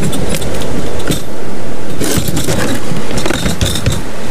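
Wind buffeting the microphone in a loud, uneven rush, with scattered short knocks and rustles.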